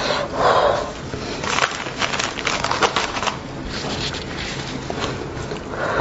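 A heavy breath out, then a paper tissue crinkling and rustling as it is pulled and wiped across the nose and mouth, with a sniff, after eating spicy lamb's head.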